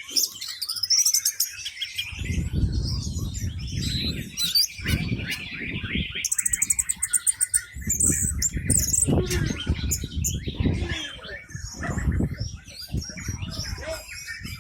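Orange-headed thrush singing a loud, varied song of rapid chirps, trills and quick repeated notes, with a low rumble underneath for most of it.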